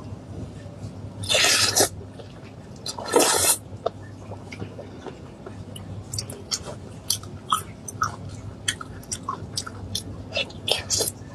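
A person eating cooked meat. There are two louder noisy bursts about one and a half and three seconds in, then a run of short wet clicks and smacks from chewing and biting.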